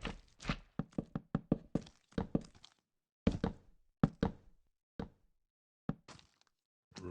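A quick, uneven series of knocks and thuds, about twenty in all, bunched together in the first three seconds and then spaced out with short silent gaps.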